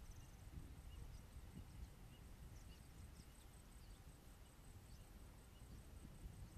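Near silence: faint outdoor ambience, a low steady rumble with scattered faint high chirps.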